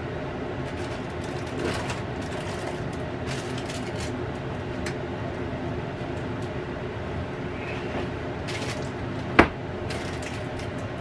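Cosori air fryer oven running, its convection fan giving a steady hum with a few tones in it. Light clicks of kitchen handling over it, and one sharp knock a little past nine seconds in.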